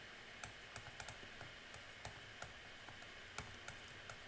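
Computer keyboard typing: faint, irregular key clicks, a few a second.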